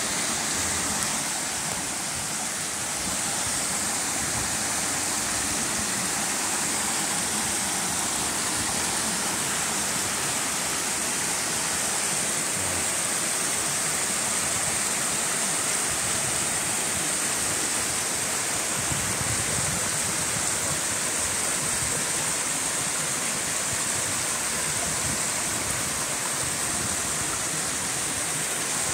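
Small waterfalls cascading over granite ledges into rock pools: a steady rush of falling and flowing water.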